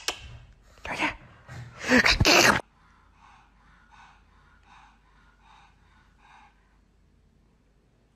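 A pug sneezing or snorting: a few loud bursts, the last the loudest, ending about two and a half seconds in. Then faint rhythmic breathing, about two breaths a second, dies away near the end.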